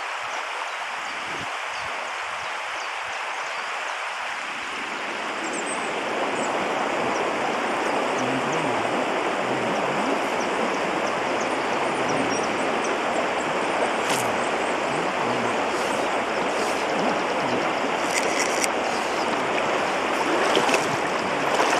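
River water rushing steadily, growing louder about five seconds in, with a few faint clicks later on.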